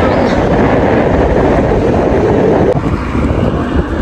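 Wind rushing over the microphone and road noise from a moving vehicle, dropping a little in level about three quarters of the way through.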